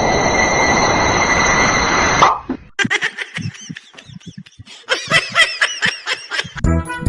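A loud, steady hiss with a high, thin tone in it for about two seconds, cutting off sharply. It is followed by a person laughing in short, quick, rising-and-falling bursts.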